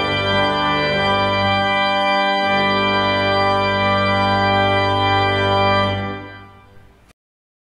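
Organ playing held chords that change a couple of times, the last chord fading out about six seconds in and cutting off to silence a second later.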